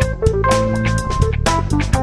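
Instrumental passage of a rock band's song: drum kit with steady beats and cymbal hits under held guitar notes, with no singing.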